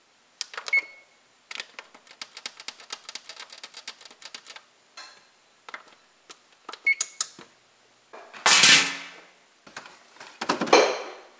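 Button presses on a GE oven's touch control panel: a short beep as Bake is pressed, a fast run of clicks while the temperature is set to 400, and another beep. Near the end come two louder handling noises as the refrigerator door is opened and a carton of butter taken out.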